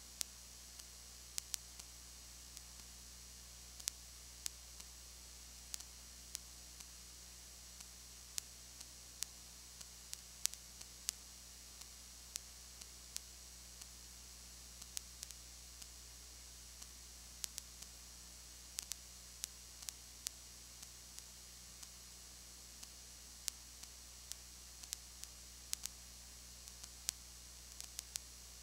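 Recording noise with no game sound: a steady low electrical hum under a constant high hiss, with irregular sharp clicks and crackles about once or twice a second.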